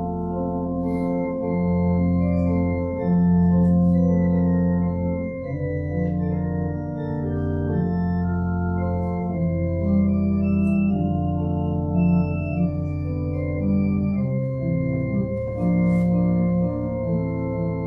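Organ playing slow music in sustained chords, with a melody moving over long-held bass notes; the bass drops lower about three-quarters of the way through.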